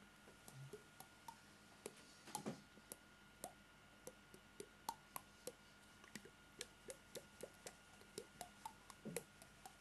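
Faint, irregular small clicks and plops, about three a second, over a faint steady hum.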